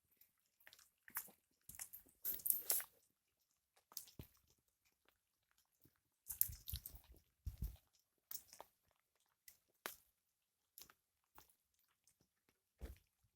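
Apple-wood campfire crackling as it burns down: irregular sharp snaps and pops, bunched into a denser run about two seconds in and again around six to eight seconds, with a few duller thuds among them.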